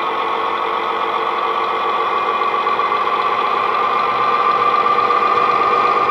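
Model Class 41 Warship's DCC sound decoder playing a recorded MAN L12V diesel engine through its speaker, running under load, its pitch and loudness climbing slowly as the locomotive pulls its train.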